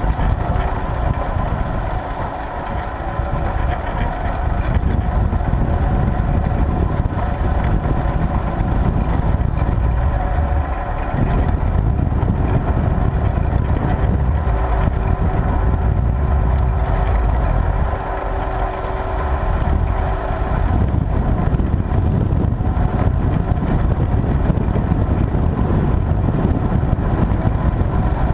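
Tractor engine running steadily under load while pulling a plough, its level dipping slightly a few times.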